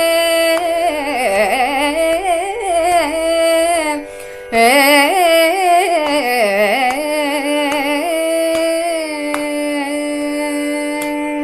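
Woman singing a Carnatic melody in raga Ramapriya: two phrases full of quick ornamented turns, then a long held note near the end, over a steady drone.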